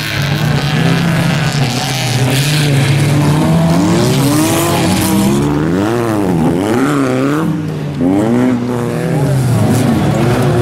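Autocross hatchback race cars' engines, an Opel Corsa among them, running hard on a dirt track: held at steady high revs at first, then from about four seconds in revving up and down rapidly as the throttle is worked and the wheels spin through a sliding corner, with more than one engine heard at once.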